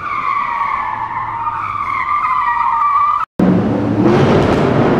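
Car tire screech sound effect: one long squeal that sags slightly in pitch and cuts off suddenly about three seconds in. A loud whooshing rush with a low rumble follows as the intro starts.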